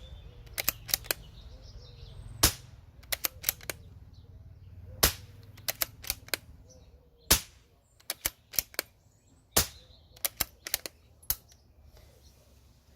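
Four moderated shots from a CZ452 .22LR bolt-action rifle with a Parker Hale moderator firing Winchester subsonic rounds, about two and a half seconds apart. Each shot is followed by a quick run of quieter metallic clicks as the bolt is worked to chamber the next round.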